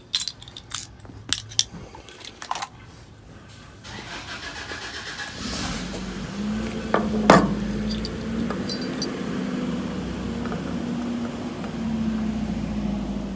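Clicks and small handling knocks for the first few seconds, then a motor vehicle engine running steadily from about four seconds in, with one sharp click about seven seconds in.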